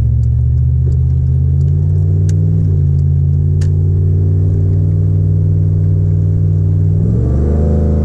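Pickup truck's LS V8 engine pulling hard under heavy throttle, heard from inside the cab, its pitch climbing near the end as the revs rise.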